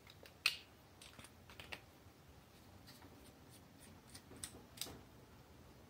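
Faint clicks and scrapes of a screwdriver working a wire into the screw terminal of a small plastic switch block. The sharpest click comes about half a second in, with a few lighter ones after and two more near the end.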